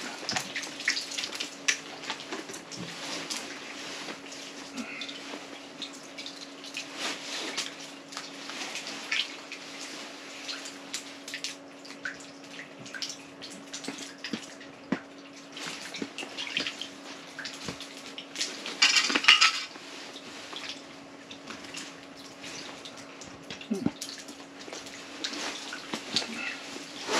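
Scattered small clicks, taps and drips of jigging rods and line being worked over a hole in the ice, with a short rattling flurry of clicks a little past the middle, over a faint steady hum.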